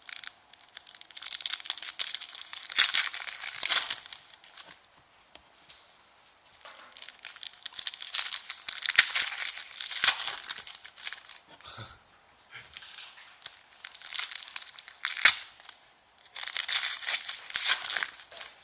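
Foil wrappers of basketball trading card packs being torn open and crumpled by hand: four long spells of crinkling and tearing, separated by short pauses.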